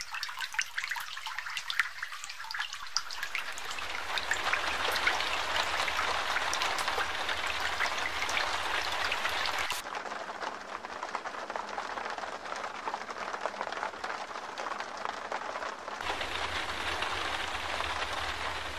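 Heavy rain falling, a dense hiss of many drops striking umbrellas and wet ground. The sound changes abruptly about ten seconds in and again near the end.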